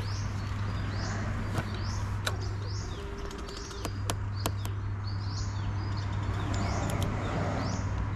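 A bird calling in a steady series of short, falling chirps, about one a second, over a steady low hum that drops out briefly around three seconds in. A few sharp clicks come in between, as the motorcycle's ignition key and handlebar switches are worked.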